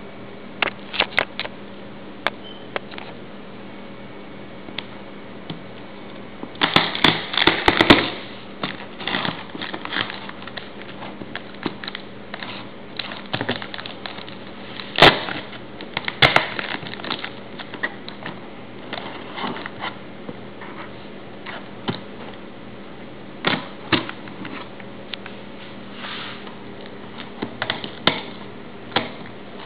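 A taped cardboard shipping box being handled, with its packing tape slit by a knife near the end: irregular clicks, taps and scraping rustles, densest about seven seconds in, over a faint steady hum.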